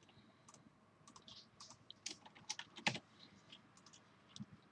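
Faint, irregular keystrokes on a computer keyboard as a short name is typed in.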